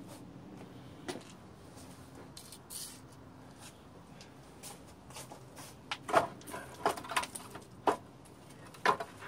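Hand tools on the exhaust manifold of a Nissan Altima 2.5L four-cylinder: scattered sharp metallic clicks and clinks. A few come early, and a dense irregular run of them comes about six to eight seconds in.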